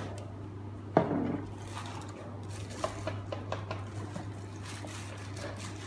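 Small hard objects being handled, knocking and clinking: one sharp knock about a second in, then a scatter of lighter clicks.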